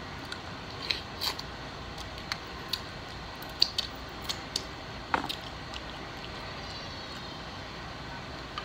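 Wet mouth smacks and clicks of a person chewing and licking sauce off her fingers, a dozen or so short sharp ones scattered through the first six seconds, over a steady low hiss.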